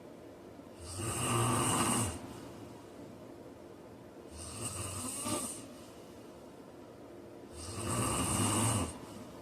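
A man snoring in his sleep: three snores about three and a half seconds apart, each lasting about a second, with a low rattle under a breathy hiss.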